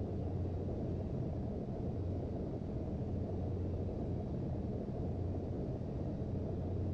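Steady low drone inside the cabin of a Boeing 737-800, the engines and airflow heard through the fuselage, with a constant low hum beneath.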